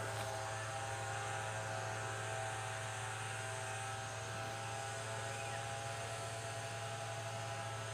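A steady, unchanging hum made of several steady tones, with a low tone strongest, from an unseen motor or engine.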